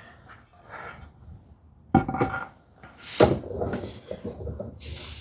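Woodworking hand tools handled on a workbench: faint scraping and light scuffs, with two sharper knocks about two and three seconds in, the first ringing briefly like metal set down on wood.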